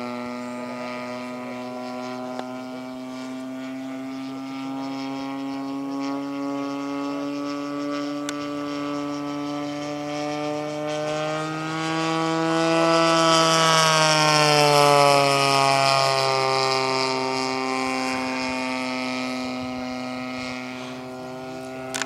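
Single-cylinder two-stroke petrol engine (DLE 35cc) of a large RC model Spitfire running steadily in flight. About twelve seconds in it grows louder and rises in pitch, then drops in pitch as the plane passes closest overhead, and fades again.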